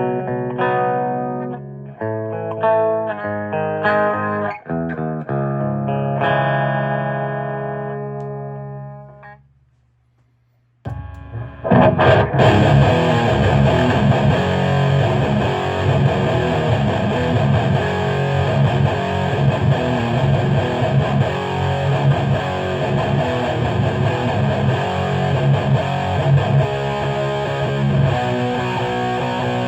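Electric guitar tuned to C sharp, played through a Peavey 6505 II head and a Marshall 1960 4x12 cabinet and recorded on a phone. For about nine seconds single notes and chords ring out and die away to a moment of silence. Then dense, heavily distorted riffing starts and keeps going.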